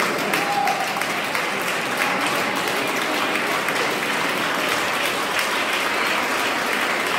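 Steady applause and hand-clapping after a volleyball match, as the teams file past each other shaking hands.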